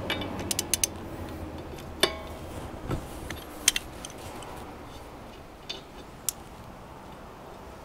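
Socket and metal tools clinking on an ATV's rear axle nut and wheel hub as the nut is worked off to free the hub. Scattered sharp metallic clicks, the loudest about two seconds in and again near four seconds.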